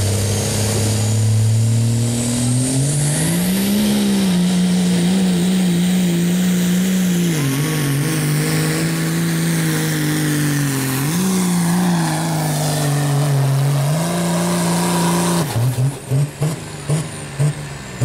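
Second-generation Dodge Ram's Cummins turbo-diesel pulling a sled at full throttle. The revs climb over the first few seconds with a rising turbo whistle, then hold high and steady with two brief dips. About fifteen seconds in the throttle is let off: the engine drops to uneven chugs and the turbo whistle winds down.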